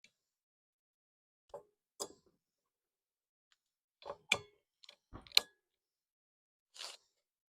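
Hard plastic clicks and snaps of a wiper blade being fitted onto a wiper arm: single clicks about a second and a half and two seconds in, a quick pair around four seconds, and a louder snap pair just after five seconds. A short scraping rustle near the end.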